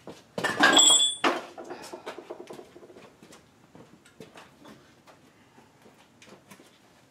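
A loud clatter of metal parts being handled for about a second near the start, with a brief metallic ring, then scattered light clicks and taps of work on the brake assembly.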